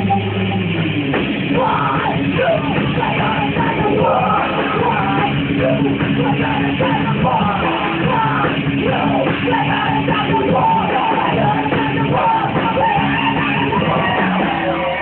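Rock band playing live: electric guitars, bass guitar and drums, with a singer's vocals over them.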